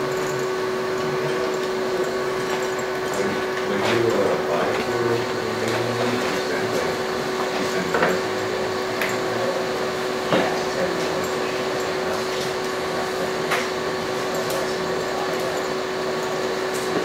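Steady electric hum with one constant tone from the CoMan humanoid robot's joint motors as it holds its balance, broken by a few light knocks as it is pushed and shifts on the floor.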